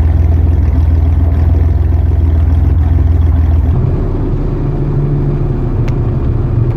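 Car engine running steadily with a deep low drone; about halfway through the note shifts a little higher. A single sharp click comes near the end.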